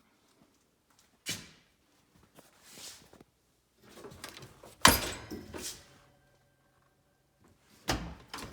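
A few sharp knocks and bangs, the loudest about five seconds in, followed by a faint ringing tone that dies away after a second or so.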